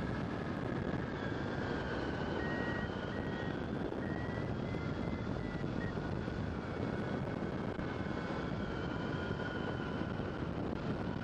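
Steady rush of fast airflow past a hang glider pilot's helmet, picked up by a stereo mic inside the helmet, with faint thin whistling tones riding above it.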